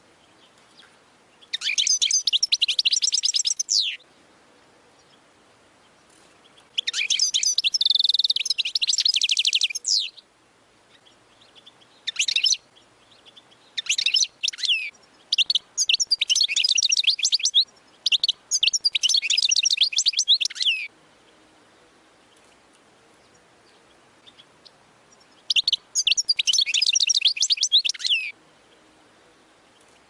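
European goldfinch singing: several bursts of rapid, high twittering song, each lasting up to about four seconds, with quiet pauses between them.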